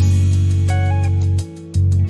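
Background music: short higher notes over held bass notes, dipping briefly about one and a half seconds in.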